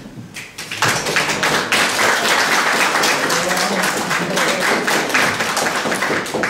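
Audience applauding, the clapping starting about a second in and going on steadily.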